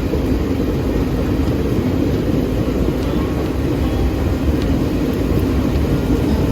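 Steady low rumble of a passenger train running along the track, heard from inside an air-conditioned sleeper coach.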